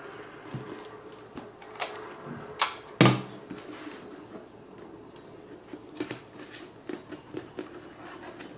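A thin plastic sheet and paper cone crackling and clicking as it is handled and shifted on a work surface: irregular sharp clicks, the loudest about three seconds in, with a faint steady hum underneath.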